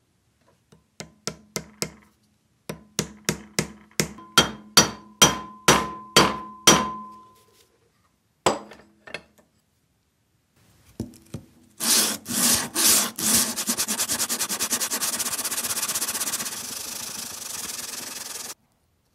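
Hammer tapping on metal about a dozen times, the blows growing louder and ringing, then a few knocks. After that comes rapid back-and-forth rubbing of a small metal figure's base on abrasive paper over a wooden block, which stops suddenly.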